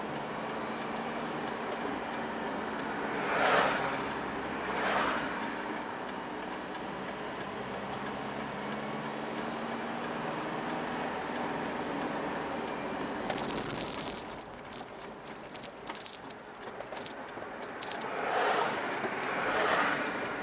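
Road noise inside a moving car on wet pavement: a steady hum of engine and tyre hiss. Passing vehicles' tyres on the wet road swell up and fade four times, twice a few seconds in and twice near the end, and the hum dips for a few seconds past the middle.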